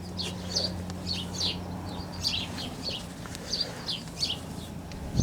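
Small birds chirping in short, repeated high notes, over a steady low hum.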